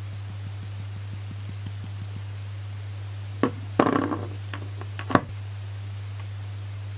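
Samsung Galaxy Note 9 S Pen tapped against the phone's display, its loose side button rattling: a sharp click, a short burst of rattling clicks, a few small ticks and a final sharp click, over a steady low hum.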